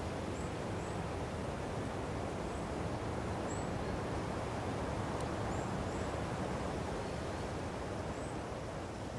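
Steady outdoor ambience of rushing air noise, with scattered short, faint, high chirps; it begins to fade out near the end.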